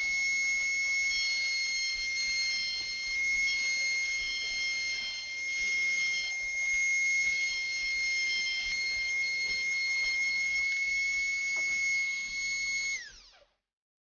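Tacklife rotary tool on a flexible shaft running with a steady high-pitched whine as its small burr grinds into a piece of cow bone. Near the end the whine drops in pitch as the tool spins down and stops.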